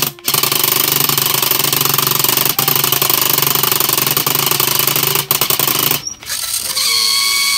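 The motors of a robot's two-stage chain-driven linear lift are running as it raises, with a loud, harsh grinding rattle for about six seconds, then a steadier whine after a short dip. The second-stage motor sounds really bad because it is not tightened.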